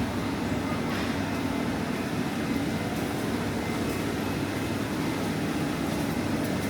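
Steady low rumble and hum of a busy supermarket interior, with a few faint light clicks.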